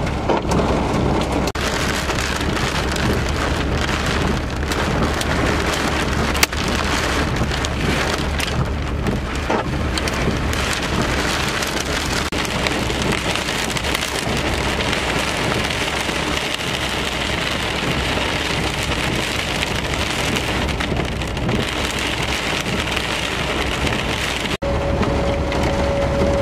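Heavy rain beating steadily on a vehicle's windshield and body, over a steady low hum. Near the end the sound breaks and a steady tone comes in.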